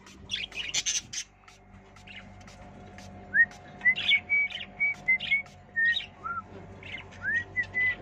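Caged budgerigars chirping: quick sharp chirps about half a second in, then from about three seconds in a run of short whistled notes, each rising or falling briefly.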